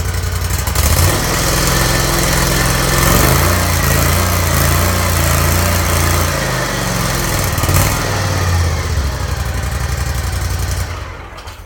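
Wright Stander X stand-on mower's engine running on fresh oil after its first oil change. The engine picks up speed about a second in, dips and rises again past the middle, then cuts out and dies away near the end.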